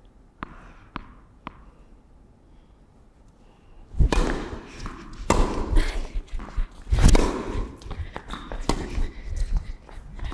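Tennis ball bounced three times on a hard court, then a rally: loud racket strikes on the ball and bounces from about four seconds in, roughly every one to one and a half seconds, each echoing in an indoor tennis hall.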